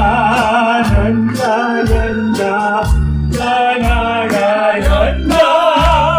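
Elderly man singing into a microphone with a wavering vibrato, over musical accompaniment with a steady drum beat about twice a second.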